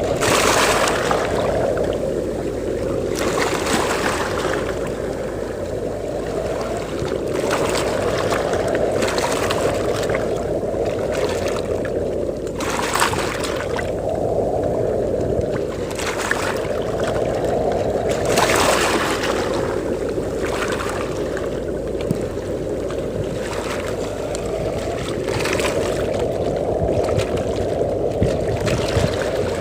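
Sea waves washing onto a beach in wind: a steady low rumble of surf, with a hissing surge of breaking water every few seconds.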